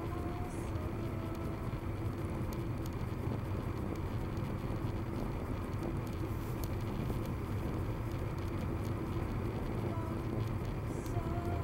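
Steady road and engine noise heard from inside a car cruising at highway speed, around 100 km/h: an even low rumble with a steady hum over it.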